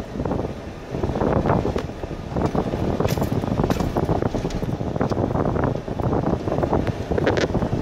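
Road noise inside a car's cabin: tyres rumbling over a dirt road, with a few sharp ticks, likely from gravel.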